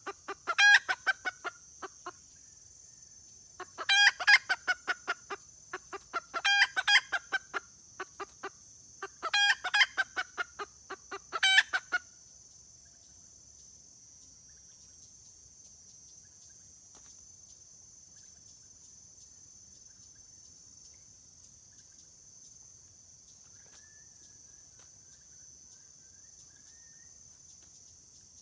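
Junglefowl hen giving her rapid 'kekek' cackle, a call to the male: four quick strings of sharp clucks in the first twelve seconds, then only a steady high hiss.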